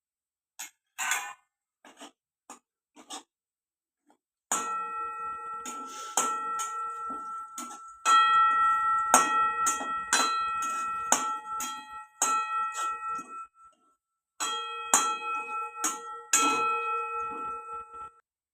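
A metal spoon strikes a metal cooking pan over and over, about once a second, and the pan rings with bell-like tones after each strike. A few light clicks come before the striking starts.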